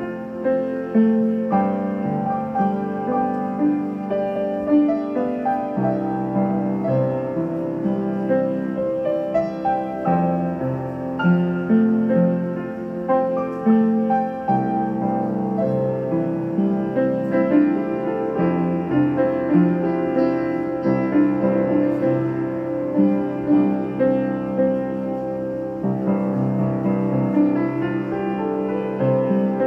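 Piano music, held notes over low chords, changing about once a second.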